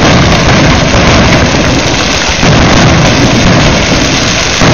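Many ground fireworks going off at once among a crowd: a very loud, continuous rumble and crackle with no single bangs standing out.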